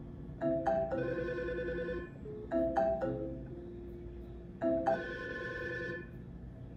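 Outgoing phone call ringing: a short melodic ring phrase of a few chiming notes, repeated three times about two seconds apart.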